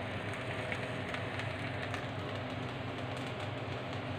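Semolina halwa sizzling steadily in ghee in a pan while a spatula stirs and scrapes through it, with a few faint clicks from the spatula and a low steady hum underneath.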